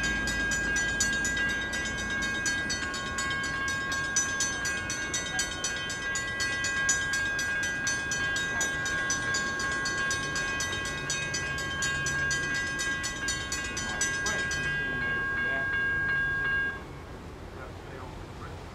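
Railroad grade crossing warning bell ringing with rapid, evenly spaced strikes over a steady ringing tone. The strikes stop near the end and the ring dies away a couple of seconds later.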